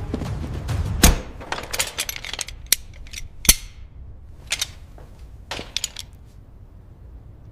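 A series of sharp mechanical clicks and clanks from equipment being handled, the loudest about a second in and again halfway through, over a low rumble that dies away after the first second.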